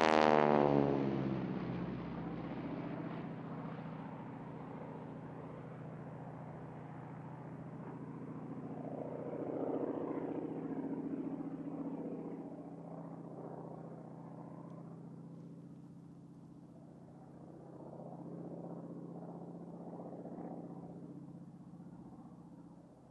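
A North American SNJ/T-6 Texan's radial engine and propeller pass close by, loudest at the start with a falling pitch. The engine then drones more distantly, swelling twice and fading as the plane climbs and dives through its smoke-trailing aerobatics.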